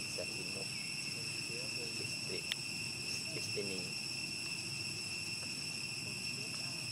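Steady, high-pitched drone of an insect chorus, unbroken throughout, with a single short tick about two and a half seconds in.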